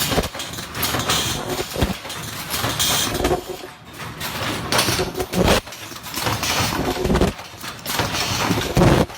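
Face mask production machine running, with uneven knocks about once a second over a continuous mechanical clatter.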